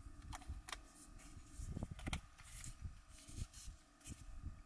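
Faint handling of a slim metal drink can, her fingers working at its tab: a few small clicks and rustles.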